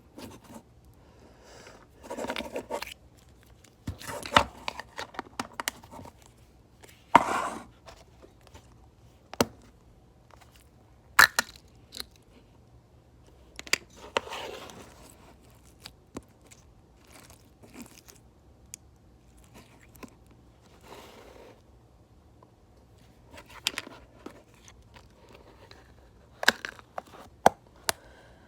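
Hands working a slime: irregular sharp clicks and short crackling, squishing bursts, a second or more apart, with louder pops now and then.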